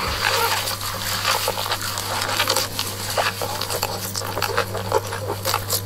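Someone chewing a burger: irregular crunchy, smacking clicks over a steady low hum.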